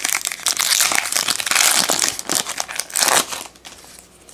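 Foil wrapper of a trading-card pack crinkling as it is torn open by hand; the crinkling stops about three and a half seconds in.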